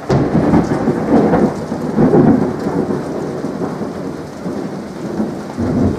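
Rolling thunder over steady rain. It is loudest in the first two or three seconds, eases off, then swells again near the end.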